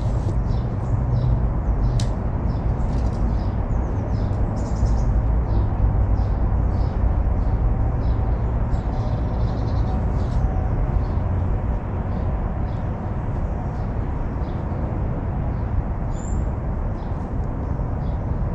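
Steady low rumble of road traffic with small birds chirping repeatedly over it.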